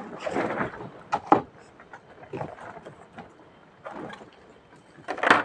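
A cardboard box being handled and opened: the lid sliding and scraping off, with sharp taps and knocks of cardboard against the table and hands, and a louder rustling scrape about five seconds in.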